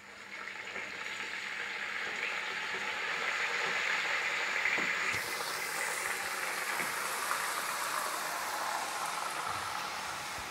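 Marinated beef pieces going into hot oil with browned onions and sizzling steadily; the sizzle builds over the first couple of seconds as the meat goes in, the start of frying down the meat for beef bhuna.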